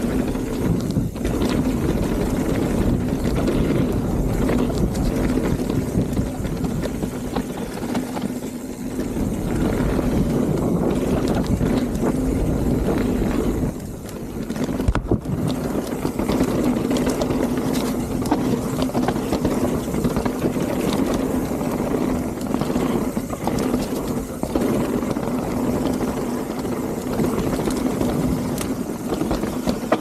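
Mountain bike descending a dirt singletrack at speed: a continuous rush of wind on the mic and tyre noise, with a steady hum and scattered knocks and rattles from the trail.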